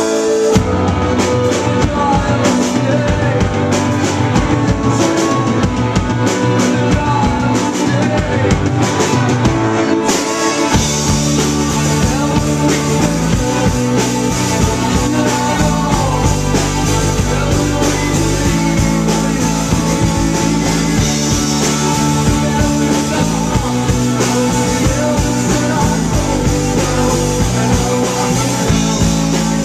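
Live rock band playing, with electric guitars, drum kit and two singers, recorded on a small camcorder's built-in microphone. About ten seconds in, the full band comes in and the sound grows fuller, with heavier bass notes and cymbals.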